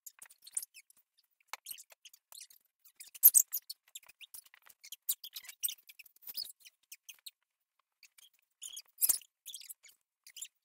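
Scattered rustling, scuffing and soft knocks as couch cushions and blankets are pulled about and moved, with a louder knock about three seconds in and another about nine seconds in.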